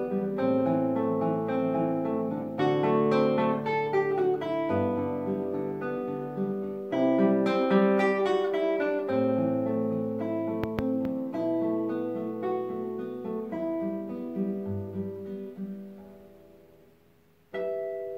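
Solo classical guitar playing a fingerpicked piece, melody over bass notes. The playing thins and fades away near the end, then a single last chord is struck just before the end and rings on.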